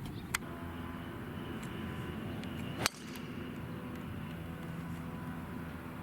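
A golf club whooshes through a swing and strikes once, sharply, about halfway through, over a steady low hum. A faint click comes just before.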